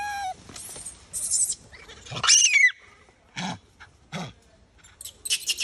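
Macaque calls: a short high-pitched cry at the start, then a loud screech falling in pitch about two seconds in, followed by several shorter harsh calls.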